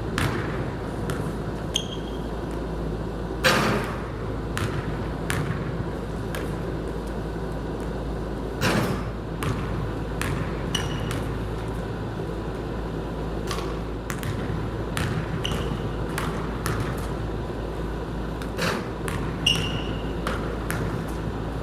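Basketball play in a gym: a ball bouncing and hitting irregularly, with two heavier thuds, over a steady low hum. A few brief high squeaks, typical of sneakers on a hardwood court, come about 2, 11, 15 and 19 seconds in.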